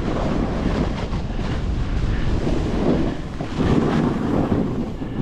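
Wind buffeting a moving action camera's microphone, mixed with a snowboard sliding and scraping over tracked snow. It grows louder for about a second, about three and a half seconds in, as the board banks into a turn.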